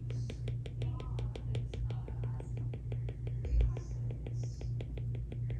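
Apple Pencil tip tapping rapidly on an iPad's glass screen while stippling dots: a run of light, sharp clicks, several a second, over a low hum.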